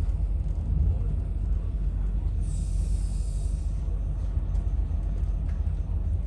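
Steady low rumble of a moving passenger train heard from inside, with a brief hiss about two and a half seconds in.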